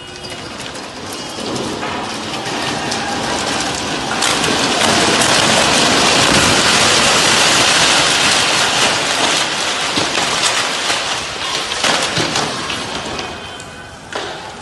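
Heavy storm rain pouring down in a steady hiss. It builds over the first few seconds, is heaviest in the middle, and eases off a little near the end.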